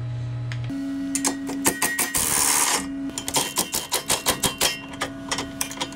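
Cordless impact wrench on a car's sway bar end link nut, run in short bursts: a string of sharp clicks with a longer run about two seconds in, as the nut is spun off.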